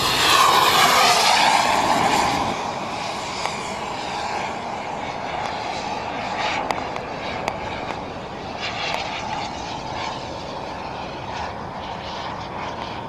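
Model jet microturbine (the Black Mamba turbine in a Feibao Mirage F1 RC jet) whining loud as the jet passes low, its pitch falling over the first two seconds, then a fainter, steadier turbine rush as it flies away.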